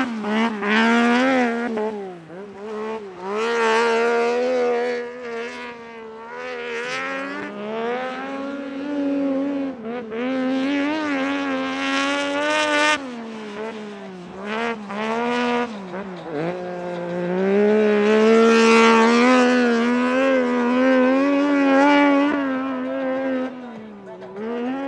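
Piaggio Ape Proto three-wheeler with a swapped-in Triumph 675 inline-three motorcycle engine, driven hard and drifting on snow. The engine note climbs and drops sharply every few seconds with throttle and gear changes.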